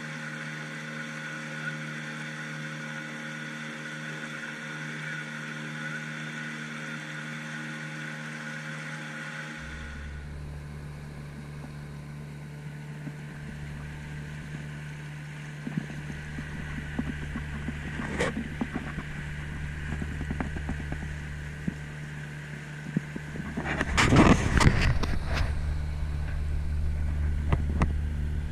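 Motorboat engine running steadily. About a third of the way in a deeper rumble joins it, with scattered splashes and knocks, and a loud rush of water or wind lasting about a second and a half near the end.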